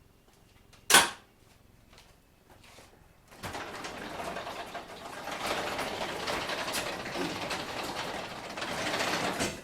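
A shop door being opened: a sharp clack about a second in, then a long, continuous noisy run of about six seconds as the door moves open.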